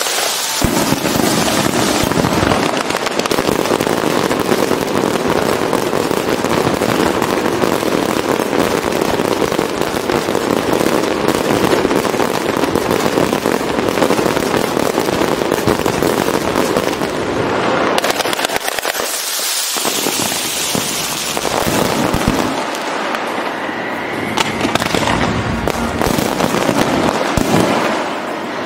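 Fireworks going off: a dense, steady crackle of many small bursts, one after another without a break.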